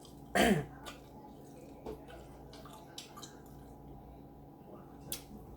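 Close-up eating sounds from a seafood boil: faint wet squishes and small clicks as sauce-coated seafood is handled and eaten. There is one short voiced sound just after the start and a sharper click near the end.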